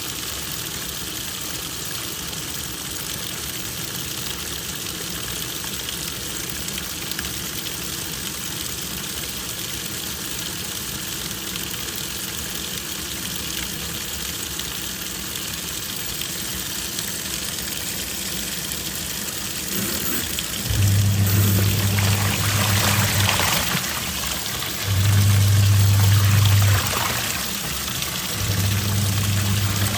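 Twin-tub washing machine: water running into the tub, then about 21 seconds in the wash motor starts with a low hum that runs in bursts of about two seconds with short pauses, the pulsator turning one way and then the other.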